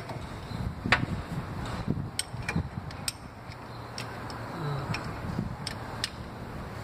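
Wrench on the crankshaft pulley center bolt of a Toyota 1ZZ-FE engine being turned by hand: a handful of sharp, irregular metallic clicks and taps over a steady low hum. The engine is free to turn, so the bolt spins with it instead of tightening.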